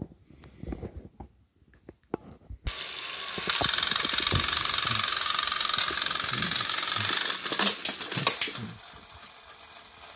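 Battery-powered toy train engines' motors switched on one after the other, about 2.7 and 3.5 seconds in, running with a steady whirring hiss and gear rattle as the two engines push against each other. The noise eases a little before the end.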